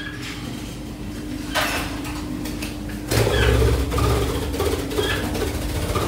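Rustling and bumping of things being moved and handled, over a steady low hum. A louder rush of noise with a low rumble comes about halfway through.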